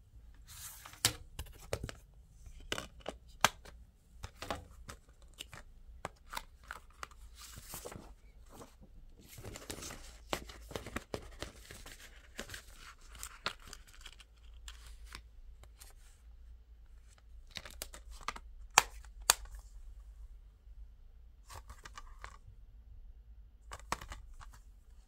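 Hands handling a plastic Blu-ray keep case and its paper cover sleeve: scattered sharp plastic clicks and snaps, with a longer stretch of paper rustling about ten seconds in as the sleeve is slid out of the case.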